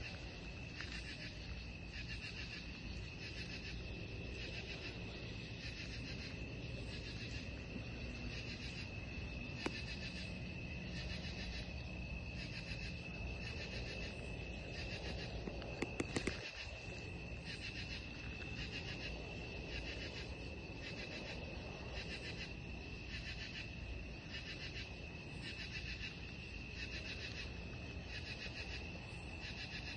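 Night insect chorus: a steady high trill runs throughout, overlaid by a second insect call that pulses at about one a second. A brief cluster of sharp clicks comes about halfway through.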